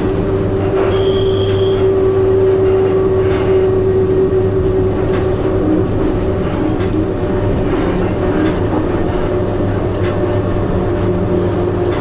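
Cab of an EP1 electric locomotive under way: a steady electrical hum and running rumble with faint clicks. A brief high beep sounds about a second in and a shorter one near the end.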